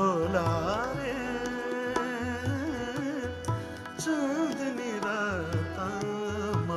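A male voice singing a long, ornamented Indian folk melody whose pitch bends and wavers in quick turns, over steady held accompanying notes and low tabla strokes.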